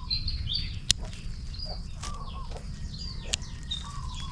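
Small birds chirping and calling over and over, with a falling call that repeats about every second and a half. Three sharp snips cut through it, about one, two and three and a half seconds in: pruning shears cutting back the upper branches of a kamuning (orange jasmine) bonsai.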